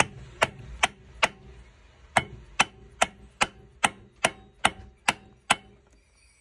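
Hammer tapping a metal driver to press a bearing into a clutch drum hub: about a dozen sharp, evenly spaced metallic strikes, two to three a second, with a short pause after the first four.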